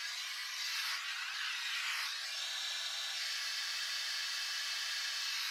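Steady hiss of a lit gas forge's burner running.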